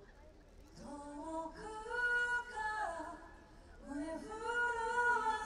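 A woman singing live: two long sung phrases with held notes, the first starting about a second in and the second a little after the middle.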